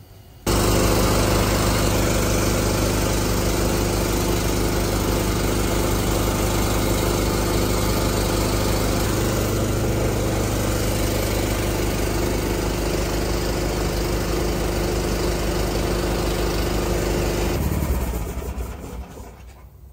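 Engine-driven air compressor running steadily while it feeds the air hose that is inflating a semi-trailer tire. It comes in abruptly about half a second in and winds down over the last two seconds.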